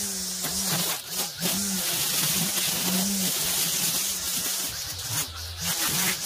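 Gas string trimmer running near full throttle as it cuts tall dry grass and weeds, its engine note wavering. The revs dip briefly about a second in and again near the end.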